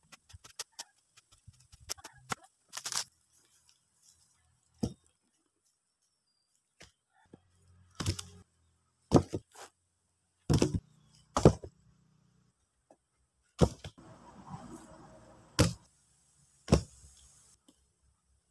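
Heavy wooden logs being dropped and knocked into place on a row of logs on the ground: a series of sharp wooden knocks, loudest in the second half, with rustling and scraping between them.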